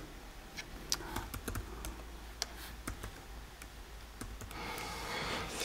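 Typing on a laptop keyboard: irregular soft key clicks as text is entered, with a soft hiss near the end.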